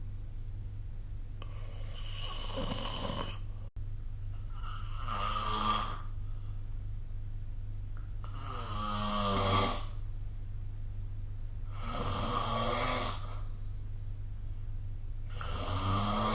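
A sleeping person snoring: five snores, one about every three and a half seconds, each lasting a second or two, over a steady low hum.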